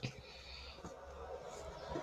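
Homemade slime being handled and squeezed by hand: faint sticky squelches and small clicks, with a sharper click right at the start.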